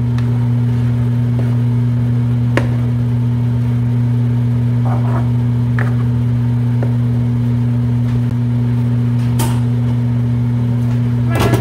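A loud, steady low hum with a spoon knocking against a frying pan now and then as a tomato sauce is stirred, and a short clatter near the end as a glass lid is set on the pan.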